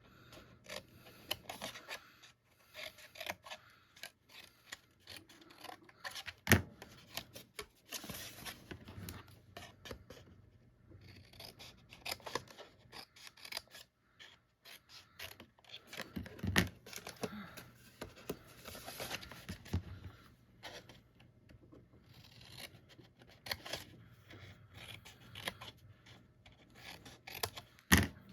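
Paper snips cutting cardstock along score lines: a run of short, irregular snipping clicks mixed with the scrape and rustle of the card being handled. Two louder sharp knocks stand out, one about six seconds in and one near the end.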